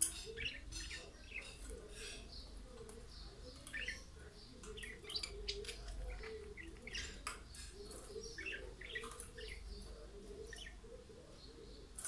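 Pair of budgerigars chirping and chattering in short, irregular high chirps.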